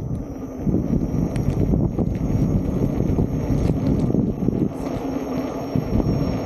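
Wind noise on the camera microphone, with tyre noise from an electric unicycle rolling over rough asphalt and a few small clicks. It gets louder about a second in as the wheel speeds up.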